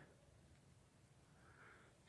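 Near silence: faint room tone in a pause between speech.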